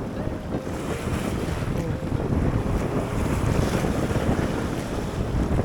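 Wind blowing hard across the microphone, a steady low buffeting, with the wash of sea waves beneath it.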